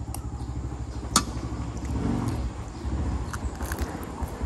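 A motor vehicle's engine running with a low, evenly pulsing rumble, and one sharp click about a second in.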